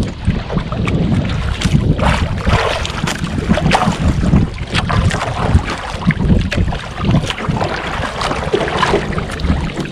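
Gusty wind buffeting the microphone over choppy sea, with waves slapping and splashing against the hull of a small outrigger boat.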